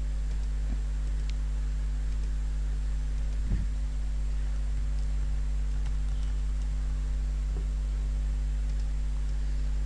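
Steady low electrical hum with a faint hiss, the mains hum picked up by the recording microphone. There is one faint click about three and a half seconds in.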